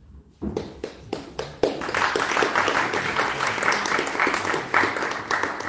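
Audience applauding: a few scattered claps about half a second in, building to full, steady applause after about a second and a half.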